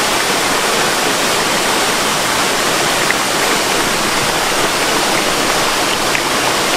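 Waterfall rushing with a loud, steady roar of falling water.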